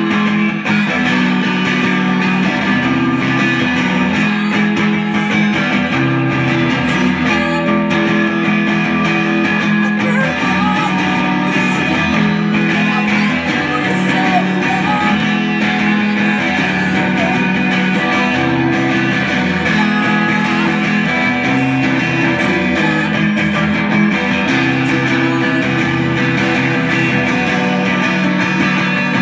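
Live rock band: an electric guitar and a drum kit playing, loud and continuous.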